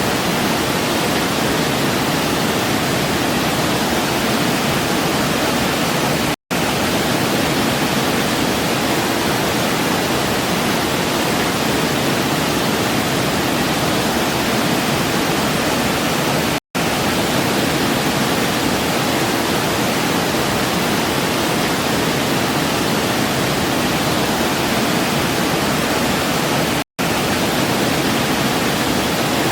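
Steady rushing water of a waterfall, an even roar without change. It cuts out to silence for a split second three times, about ten seconds apart.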